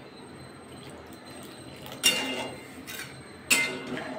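Flat steel spatula stirring a watery curry in a metal kadai, striking and scraping the pan twice, about two seconds in and again near the end, each hit ringing briefly. A soft steady hiss lies between.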